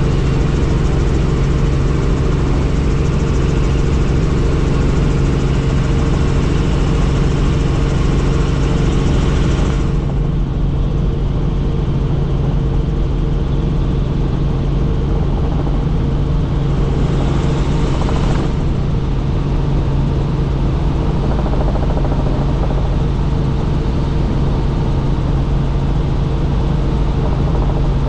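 Helicopter in flight: a steady drone of rotor and engine with a constant low hum. The higher hiss falls away about ten seconds in, swells back briefly, and drops again near eighteen seconds.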